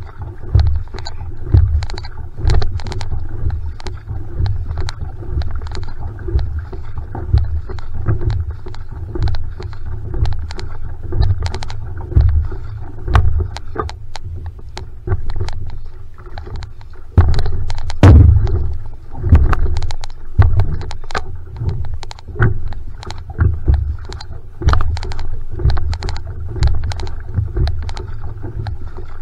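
Single-blade paddle strokes driving an outrigger canoe (va'a) in a steady rhythm, each catch and exit splashing, over a steady low rumble of water along the hull.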